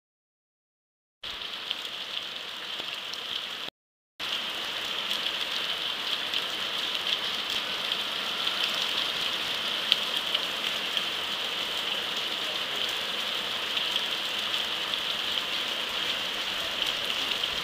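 Torrential rain pouring down in a cloudburst, a steady, even hiss. It starts about a second in, drops out briefly near four seconds in, then runs on unbroken.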